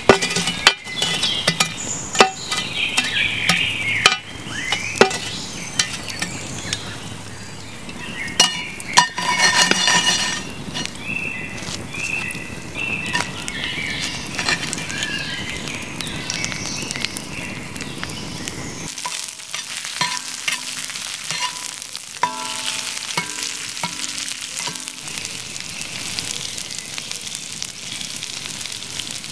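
Shovel blade scraping and clinking as glowing embers are dropped onto the cast-iron lid of a Dutch oven, with sharp clicks through the first ten seconds. Then green asparagus sizzles steadily as it fries in a black steel pan over an open wood fire.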